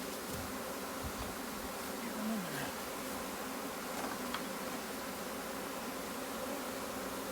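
A swarm of honey bees buzzing in a steady, even drone around a hive box they have just been shaken into. About two and a half seconds in, one louder buzz falls in pitch.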